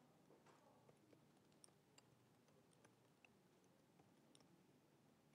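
Very faint computer keyboard typing: scattered soft key clicks, barely above silence.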